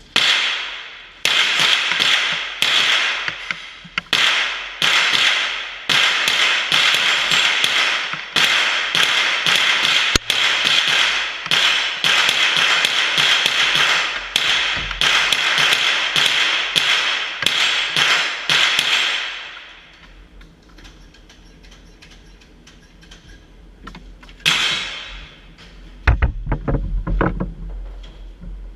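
AR-15-style rifle fired shot after shot, about two shots a second for some twenty seconds, each report ringing on in the enclosed range tunnel. The firing then stops, with one more shot and a short cluster of low thumps near the end.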